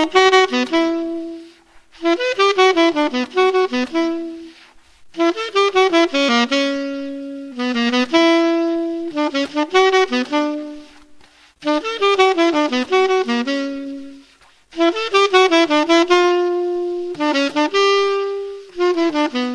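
A 1923 Buescher True Tone silver-plated C-melody saxophone with a metal Otto Link mouthpiece, played unaccompanied: a choro melody in quick running notes, in phrases of a few seconds with short breaths between them.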